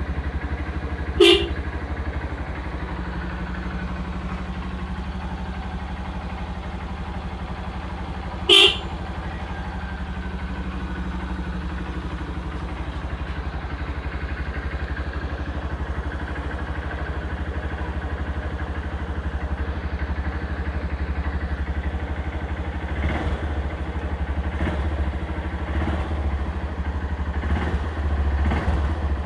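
Honda New Megapro single-cylinder motorcycle engine idling steadily, with two short honks from the car horn taken from a Toyota Avanza that is fitted to it, the first about a second in and the second about seven seconds later. Near the end the engine sound surges a few times.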